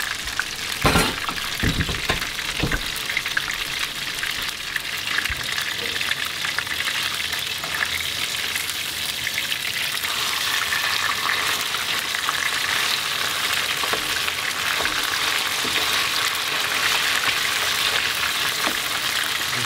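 Flour-coated salmon pieces shallow-frying in hot oil in a frying pan, a steady sizzle. A few knocks about a second in as the pieces are turned.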